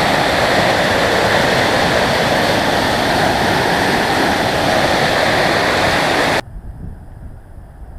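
Mountain river rushing loudly in a steady roar of water. It cuts off suddenly about six and a half seconds in, leaving only a faint low rumble.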